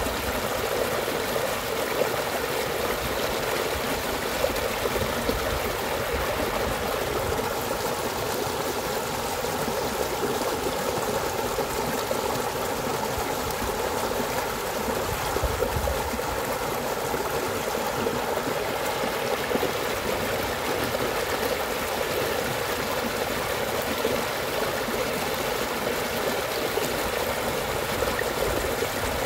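A small muddy stream running and trickling over a shallow drop in its earth bank, a steady unbroken splashing.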